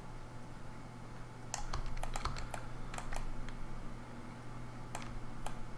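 Scattered clicks of a computer keyboard and mouse, about ten in all, most bunched in the middle and two more near the end, over a low steady hum.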